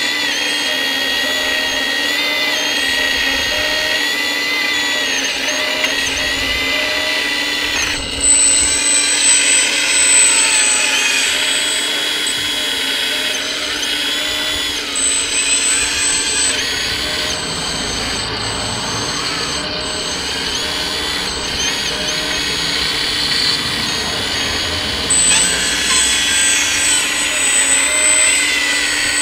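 Scale RC hydraulic excavator's electric hydraulic pump whining steadily while it digs. A higher-pitched whine cuts in and out three times.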